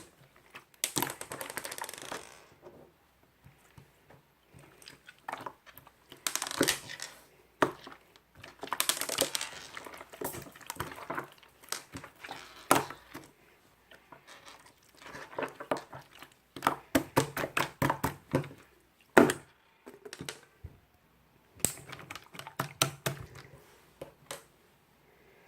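Slime being squeezed, stretched and pressed by hand, giving irregular runs of sharp popping clicks and short crackly squelches, with brief pauses between handlings.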